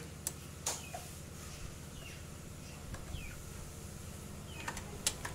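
A few light clicks and knocks of a rubber hose and metal pipe being handled and pushed onto a motor scooter engine, over a steady low hum, with faint bird chirps in between.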